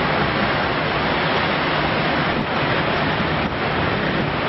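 Steady rushing wash of the ferry Pride of York's churning wake, white water foaming behind the moving ship.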